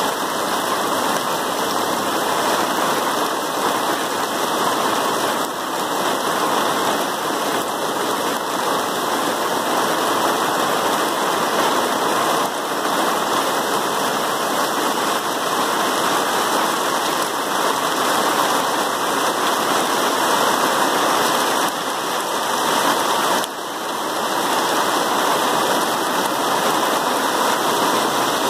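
Heavy storm rain pouring down steadily, a dense, even hiss.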